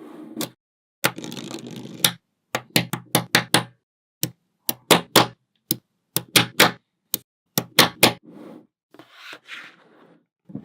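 Small magnetic balls clicking sharply as they snap together one after another at an irregular pace. There are stretches of balls rattling and rolling against each other about a second in and again near the end.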